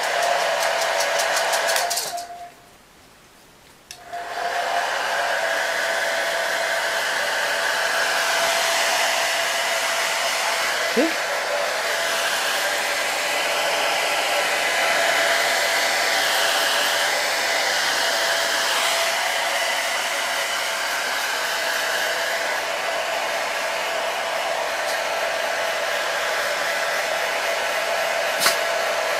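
Handheld hair dryer running with a steady whir and a constant tone. It is switched off a little over two seconds in and back on about four seconds in.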